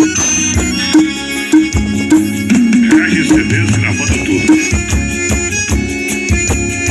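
Music with a steady percussive beat, a hit about every 0.6 s, played loud through a car's 'paredão' speaker system.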